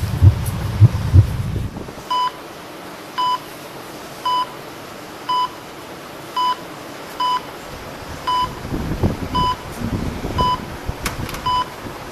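Heartbeat sound effect with low thumps for about the first two seconds, then a patient heart monitor beeping steadily about once a second.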